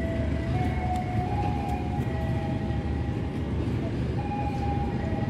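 Steady low rumble of an idling diesel passenger train standing at the station.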